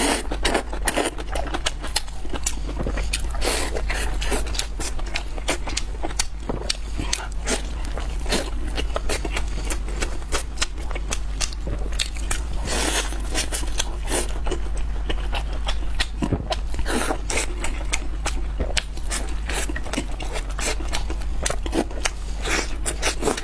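Close-miked eating: crunchy bites and chewing, a dense run of irregular sharp crackles and clicks, over a steady low hum.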